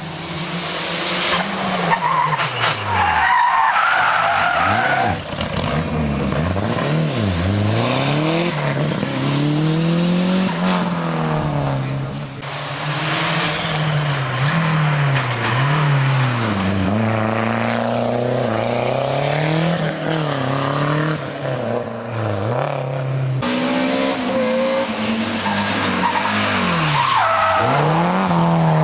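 Rally car's engine, heard continuously and driven hard along a stage: the revs climb and fall again and again through gear changes and lifts for corners, with tyre squeal.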